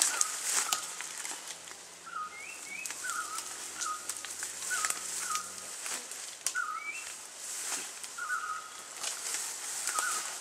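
Forest birds calling, a short chirping note roughly every second with a few higher upswept notes. Scattered crackles and rustles of leaves and branches come from a person climbing through them.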